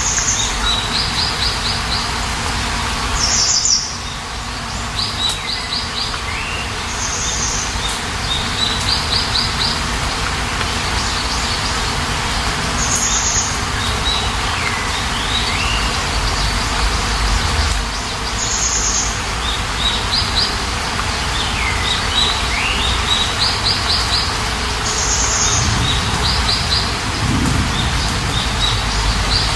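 Small birds chirping and twittering over a steady hiss of rain, the same phrase (a high chirp, a quick run of short notes, falling whistles) coming again every few seconds.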